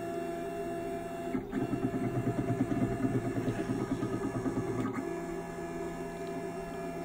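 Stepper-motor drive of a 6040 CNC router's Z axis moving the spindle carriage, a rough, fast-pulsing mechanical buzz. It starts about a second and a half in and eases off to a quieter steady hum about five seconds in.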